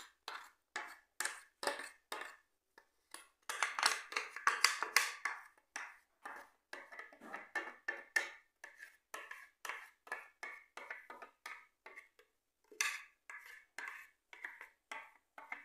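Spatula scraping batter out of a plastic blender jar: quick repeated scrapes and knocks against the jar, about two to three a second, with a brief lull about twelve seconds in.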